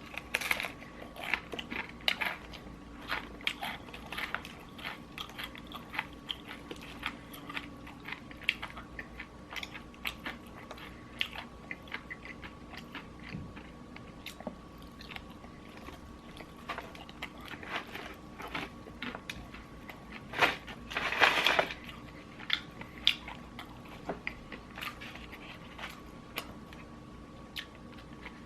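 Close-up crunching and chewing of crispy fried chicken, made up of many short crisp bites and chews. About three quarters of the way through comes a louder, longer burst of noise. A faint steady hum runs underneath.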